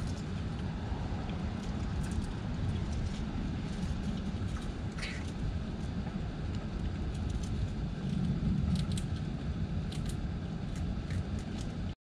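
Steady low outdoor rumble with scattered light clicks and crackles, from a squirrel picking through in-shell peanuts in a glass dish. There is a single short chirp about five seconds in.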